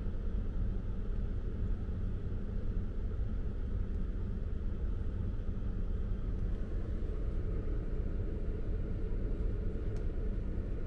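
A car's steady low rumble from engine and road, heard from inside the cabin.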